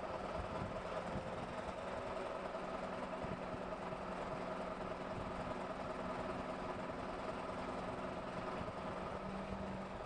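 Steady, unchanging hum of running machinery, engine-like, with a few held tones and no distinct impacts.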